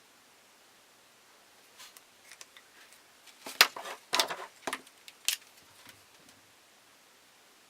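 A short run of sharp clicks and rustles, loudest around the middle, as small planner supplies are handled.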